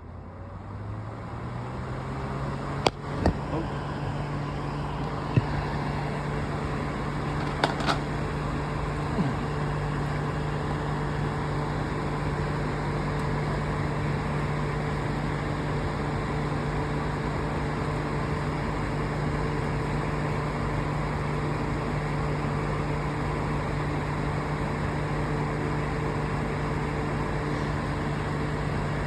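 An electric fan switched to its top speed, the motor hum rising in pitch over the first second or two as it spins up, then running steadily with a constant rush of air. A few sharp clicks in the first several seconds.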